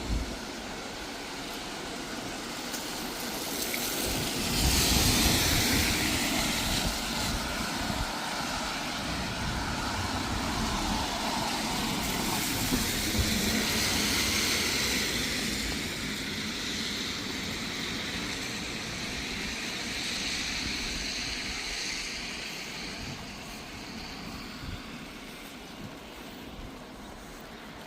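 Vehicle noise on a city street, a steady rush that swells about four seconds in, holds, then slowly fades toward the end.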